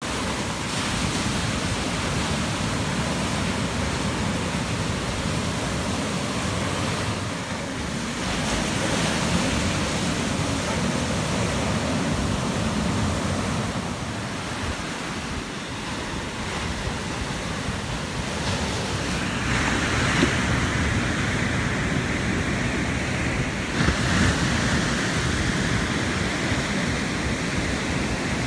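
Ocean surf: waves breaking and whitewater washing toward the shore, a steady rushing noise that swells louder twice as sets come through.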